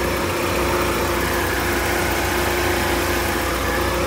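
Mercedes-Benz car engine idling steadily and smoothly, with a constant hum over the idle that is taken first for the cooling fan and then for the compressor.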